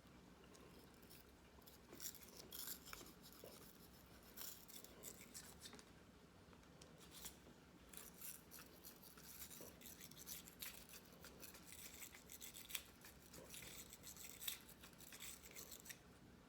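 Small brush scrubbing the barrel of a Taurus PT111 Gen 2 pistol, a faint, irregular scratchy brushing with short uneven strokes.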